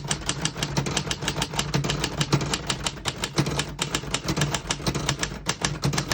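1948 Royal Arrow manual portable typewriter being typed on quickly: a steady run of sharp typebar strikes against the platen, about seven a second, as a sentence is typed.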